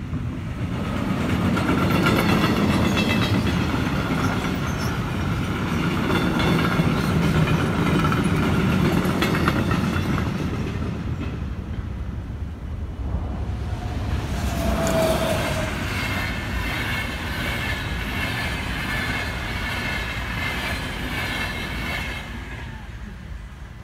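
Two trains passing over the level crossing in turn: a freight train's wheels rumbling and clattering on the rails for about the first ten seconds, then, after a short dip, an intercity passenger train passing from about fourteen seconds, with a brief steady tone soon after it arrives. The noise fades near the end.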